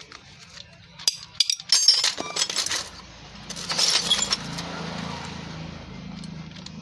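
Metal clinks and clanks of tools and gear parts as an e-rickshaw's rear differential is taken apart: a quick run of sharp knocks and clinks over the first few seconds, then a rougher scraping noise about four seconds in.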